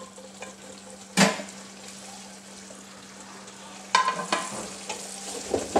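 Stuffed tinda dropping into a pan of sizzling masala, with a sharp knock about a second in. Near the end a spatula knocks and scrapes against the pan several times, over a steady sizzle.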